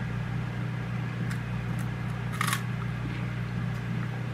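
A steady low electrical hum throughout, with a couple of faint clicks and one short, sharp crunch about two and a half seconds in as a small puffed corn snack ring is bitten.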